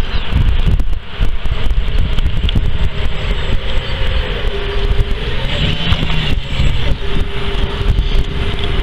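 Wind buffeting the camera microphone: a loud, ragged low rumble with a hiss over it, and a faint steady hum through the middle.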